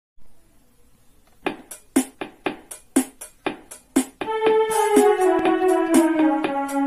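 Small electronic keyboard: its built-in drum rhythm starts after a short pause, with about four beats a second. About four seconds in, a held melody line played on the keys joins it and steps downward in pitch.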